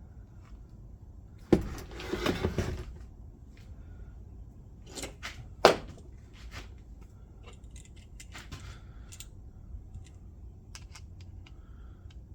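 Screwdrivers clattering as they are handled: a sharp knock about a second and a half in, a jangling rattle for about a second, then a few sharp clicks and lighter taps.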